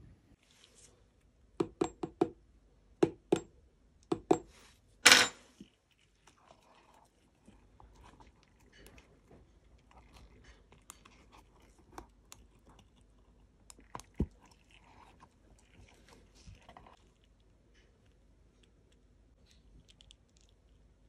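Hard depilatory wax in a silicone bowl being handled with gloved fingers. A quick run of sharp tapping clicks and knocks comes in the first few seconds, then faint crackling and ticking as the set wax is pressed and worked loose, with one more sharp tap in the middle.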